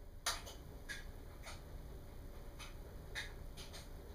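Small metal wires and clips hanging from a mask clicking and ticking lightly as the wearer moves. There is a sharper click about a third of a second in and a few smaller ones scattered after it.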